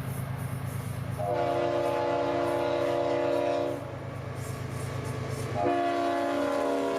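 Freight locomotive's air horn sounding a long chord-like blast from about a second in, then a second blast starting near the end. Under it runs the steady low drone of the diesel locomotive approaching at speed.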